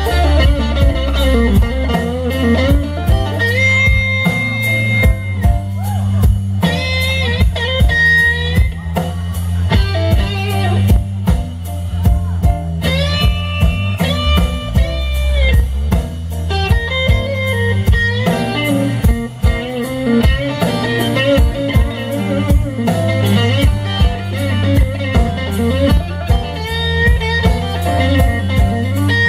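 Live blues band playing a slow blues instrumental: a Stratocaster-style electric guitar solos with bent, sustained notes and vibrato over electric bass and a drum kit.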